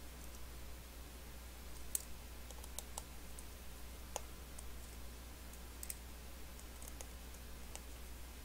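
Scattered light clicks and ticks of a precision screwdriver and small metal parts as an iPhone 6 Plus is taken apart, over a low steady hum.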